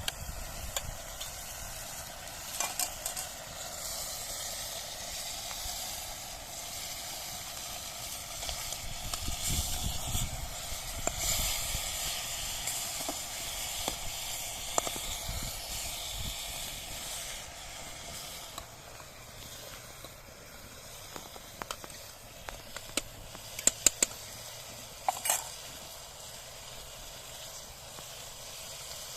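Liver sizzling as it fries, a steady hiss that swells louder in the middle, with a few sharp clicks near the end.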